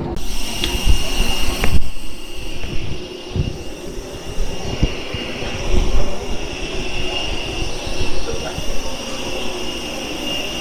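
Jet airliner engines running at low power: a steady high whine over a low rumble, with an abrupt change in the sound about two seconds in.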